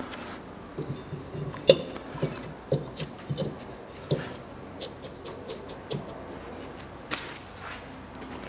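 Rear brake drum of a VAZ-2110 being pushed by hand over the hub and brake shoes: a string of short metallic knocks and scrapes, the loudest about two seconds in.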